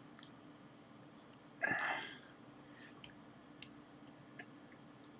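Quiet bench with a low steady hum and a few faint small clicks of thin wires being handled. One short, louder noise comes about two seconds in.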